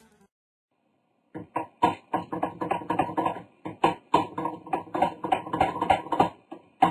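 A fast, irregular clatter of short taps and clicks, starting about a second and a half in.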